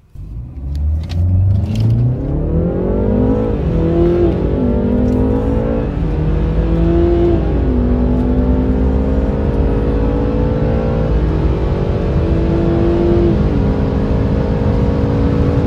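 Two cars' engines under hard acceleration at once, heard from inside the cabins: a BMW 330i G20's turbocharged 2.0-litre four-cylinder and a BMW 130i E82's 3.0-litre straight-six. Each rises in pitch through the gears and drops back at every upshift, three shifts apiece, starting from a standstill launch.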